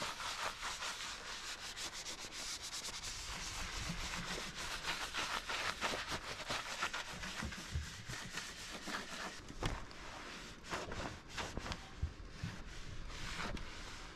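A cloth rag scrubbing oil and exhaust residue off the riveted aluminium belly skin of a Cessna 182, in quick back-and-forth rubbing strokes.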